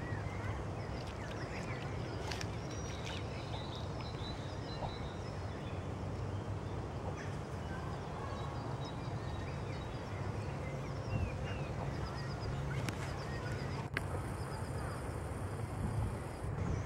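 Greylag geese and their goslings calling: scattered short, high peeps and chirps over a steady low rumble.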